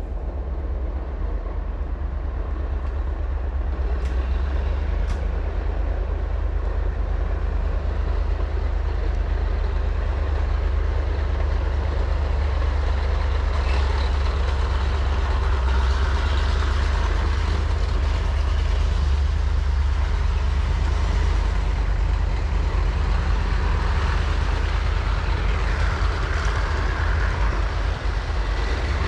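Heavy vehicle engine running with a steady low rumble, with two sharp clicks about four and five seconds in.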